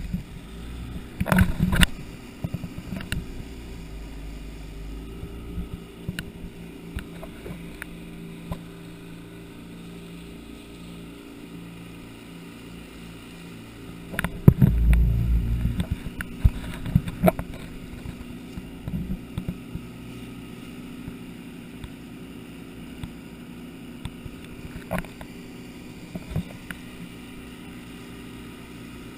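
Small speedboat's motor running steadily at speed, with water rushing past the hull. Loud thuds and splashing come about a second in and again around fourteen seconds in as the boat crosses choppy wake water.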